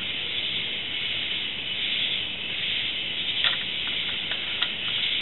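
A steady hiss, with a few faint short clicks of metal parts as a hand fits the cover of the tractor's centrifugal oil filter back down over its shaft.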